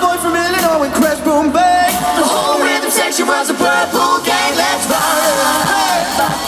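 Live pop vocals sung into a microphone over loud backing music, amplified through the stage speakers.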